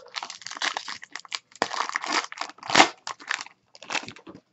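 Foil wrapper of a trading-card pack being torn open and crinkled by hand: irregular crackling and tearing of the foil, loudest about three seconds in.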